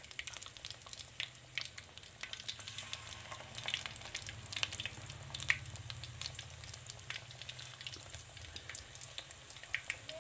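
Gram-flour-coated fish pieces frying in hot oil in a steel pan: a steady sizzle with many small crackles and pops as more pieces go into the oil. A low hum sits underneath, strongest in the middle.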